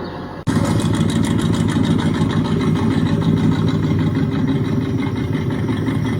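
Car V8 engine, the film's 1958 Plymouth Fury, running loud and steady inside a garage. It cuts in abruptly about half a second in.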